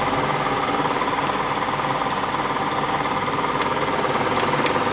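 Mistral portable air conditioner running with a steady mechanical hum. Near the end a button on its control panel is pressed, giving a click and a short high beep.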